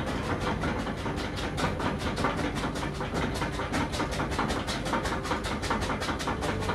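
A round oil-painting brush tapping rapidly against a stretched canvas, about six or seven dull taps a second in a steady rhythm, dabbing dark paint on for tree foliage.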